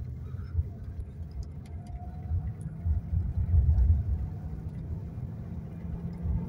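Jaguar XK8's V8 engine and road noise heard from inside the cabin while driving at about 30 mph, a steady low rumble that swells a little around the middle. The engine is running normally on its newly replaced fuel pump.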